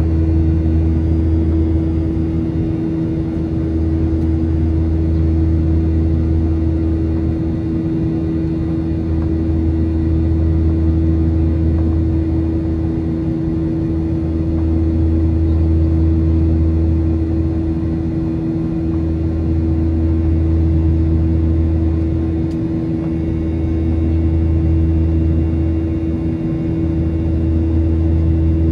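Cabin sound of a Boeing 737-900ER's CFM56-7B26 turbofan engines at climb power, heard from a window seat beside the wing. A steady drone with a strong hum and several steady tones above it, and a low rumble that swells and fades every four to five seconds.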